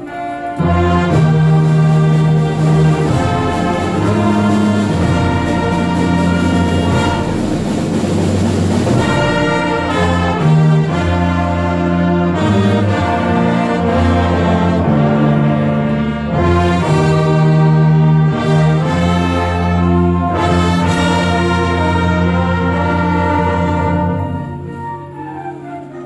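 A junior high school concert band plays a Christmas arrangement. The full band comes in loudly about half a second in, with brass to the fore over long held low notes, and grows softer near the end.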